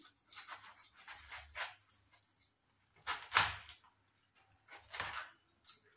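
Kitchen knife cutting through a watermelon half and its rind down onto a plastic chopping board: a quick run of short scraping strokes in the first second and a half, then three separate strokes, the loudest about three seconds in.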